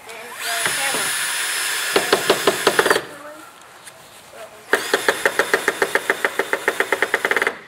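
Cordless drill driving screws into a wooden fence: two bursts of motor whine, each turning into rapid, even clicking as the screw tightens, then stopping sharply.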